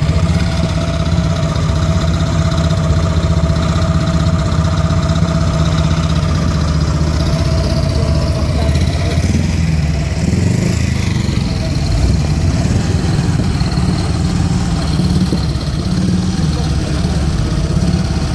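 Engines of vintage WWII military trucks running at low revs as a slow column moves past, a steady low engine note throughout that changes about halfway through as a vehicle moves off. A military motorcycle's engine joins near the end.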